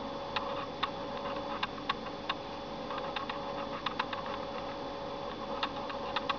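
Light, sharp button clicks, about a dozen at irregular intervals and some in quick pairs, as the media-center menus are navigated. A steady electronic hum runs underneath.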